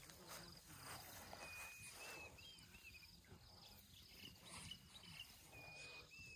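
Near silence with faint outdoor ambience: short high chirping notes repeat every half second or so, over soft rustling as an elephant calf pulls at grass with its trunk.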